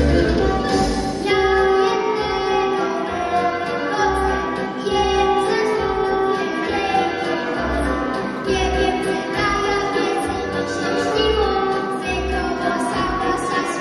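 Children singing a Christmas song over backing music with a steady bass beat about once a second.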